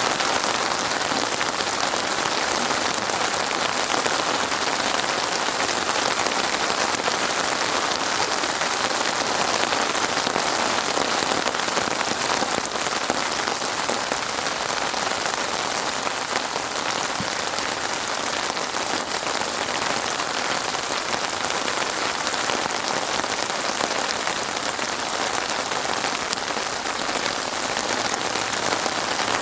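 Steady rain falling on a surface, a dense even hiss of raindrops with no thunder.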